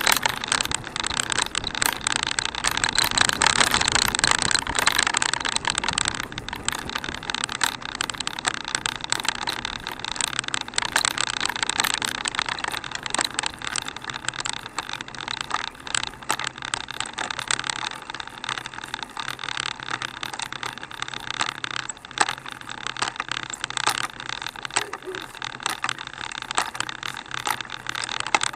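Handcycle rolling along rough asphalt: a steady rush of tyre and wind noise with dense, irregular metallic rattling and clicking from the chain and frame, louder in the first few seconds.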